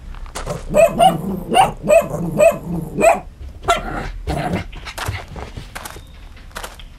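Small dog, a dachshund, barking: a quick run of about seven sharp barks, two a second, then two more a moment later, followed by fainter taps.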